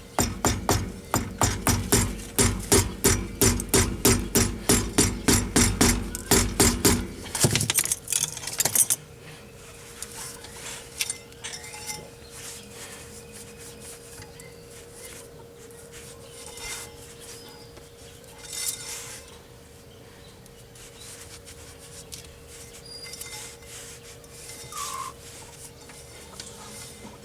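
A hammer striking metal in a fast, even run of ringing blows, about three to four a second, stopping about seven seconds in after a few last harder knocks; after that only faint scattered clinks of tools are heard.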